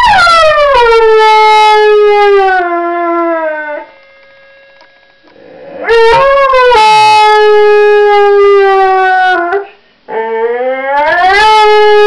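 English Bull Terrier howling in three long, drawn-out howls. The first two slide down from a high start and settle on a steady pitch. The third climbs from low before levelling off and is still going at the end.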